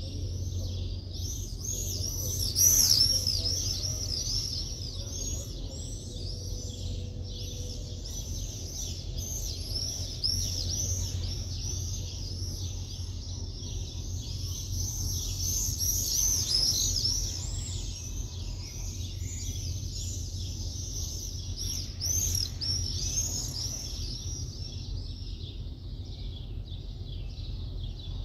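A dense chorus of small birds chirping without a break, with a louder flurry of chirps about three seconds in, over a steady low city rumble.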